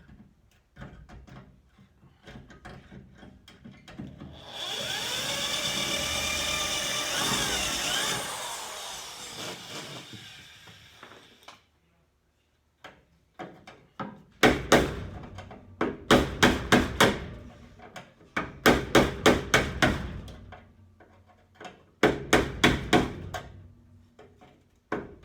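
Sheet metal being stripped from a car's frame rails: a harsh metallic screech with wavering pitch lasting several seconds, then, after a short pause, bursts of rapid, sharp hammer blows on metal, several a second.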